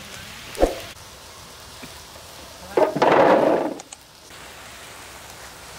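Fried water caltrops rattling as they are tipped from a metal skimmer into an aluminium basin, a rough pour of about a second starting near three seconds in. It comes after a single knock of the skimmer on the metal wok, over a low steady hiss from the hot frying oil.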